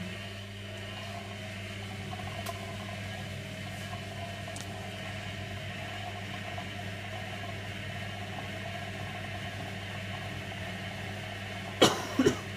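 Servis Slimline 308S washing machine running a cottons 60 wash with a steady motor hum. Two sharp knocks come close together near the end.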